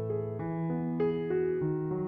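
Background music: a keyboard tune of held piano-like notes, with a new note or chord coming in about every half second.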